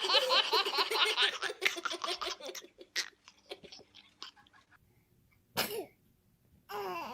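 Laughter in a rapid run of high-pitched ha's, fading over the first two to three seconds. About five and a half seconds in comes one short baby sneeze.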